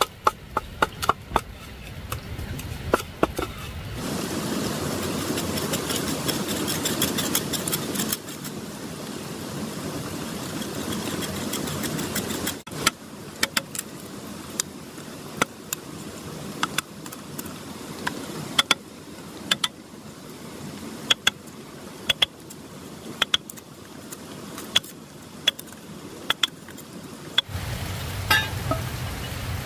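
Heavy knife chopping and shaving a green bamboo pole: sharp strikes of the blade into the wood, often about one a second, with a stretch of quicker scraping strokes a few seconds in.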